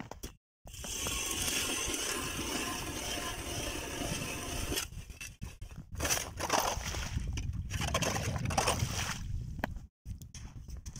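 A hand ice auger drilling through lake ice, its blades making a steady crunching scrape for about four seconds. The sound then turns uneven and churning as the auger breaks through and water and slush come up the hole, and it stops near the end.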